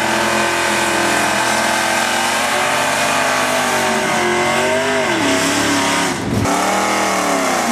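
Ford drag car's engine revving hard through a burnout, pitch swinging up and down repeatedly over the hiss of spinning tyres, with a brief drop in level a little after six seconds.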